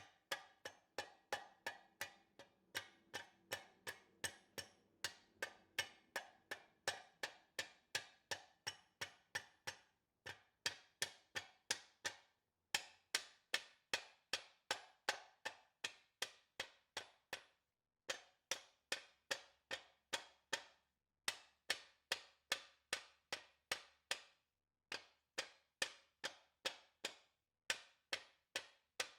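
Even, rapid striking on a metal part, about two to three sharp blows a second in runs broken by short pauses, with a faint metallic ring under the first few seconds.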